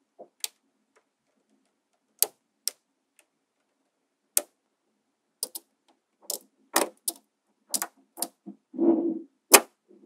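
Small magnetic balls clicking sharply as they snap together, single clicks a second or two apart at first, coming faster in the second half, with duller clattering of a handful of balls shifting near the end.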